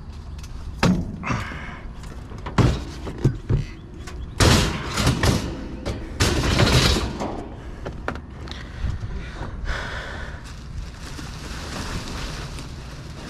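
Junk being handled and shifted: a string of knocks and thumps with rustling and scraping in between, loudest in a stretch of clatter around the middle.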